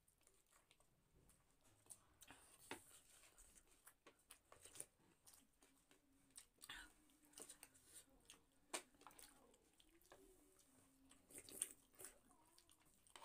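Faint eating sounds: chewing, with scattered small clicks and taps of a spoon against a bowl.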